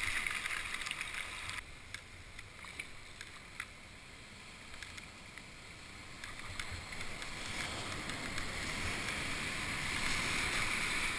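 Whitewater and breaking surf rushing around a sea kayak, a steady wash of water noise. It drops abruptly about a second and a half in, then builds again toward the end, with a few faint ticks.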